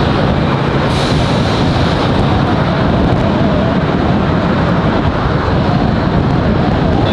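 Steady road and wind noise of a moving car, heard from inside the vehicle.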